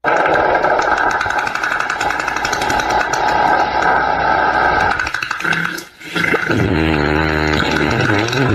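Fart sound effect: a long, loud, noisy fart for about five seconds, a short break around six seconds in, then a lower, pitched buzzing fart.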